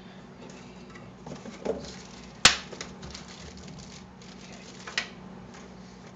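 Hands working on a computer case and its cables: light rustling and small knocks, with a sharp click about two and a half seconds in and a smaller one near five seconds.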